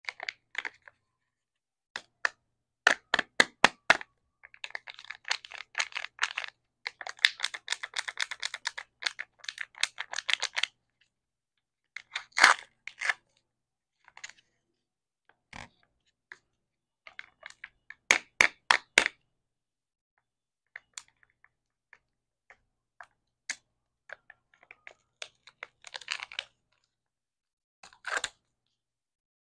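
Kinder Joy plastic egg halves and their foil seal being handled and peeled back. The sound is a run of sharp clicks and crinkly crackling, with short pauses between; the longest stretch of crackling falls about 5 to 10 seconds in.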